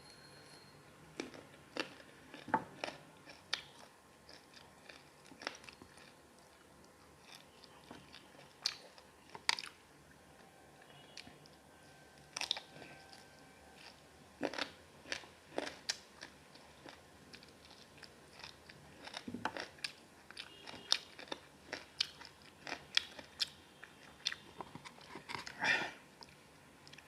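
A person eating a masala chicken leg piece close to the microphone: chewing and biting, heard as irregular sharp little clicks and smacks.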